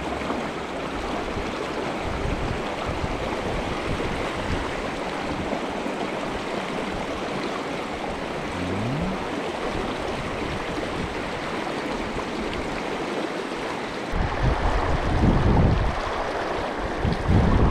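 Mountain stream water rushing steadily. About fourteen seconds in, gusts of wind start buffeting the microphone.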